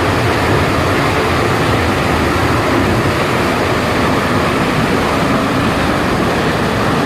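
Steady, loud roar of a large waterfall, an even rushing noise with no breaks.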